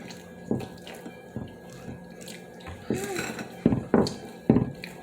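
Close-miked eating sounds: wet chewing and mouth smacks in a series of short bursts, the loudest three near the end.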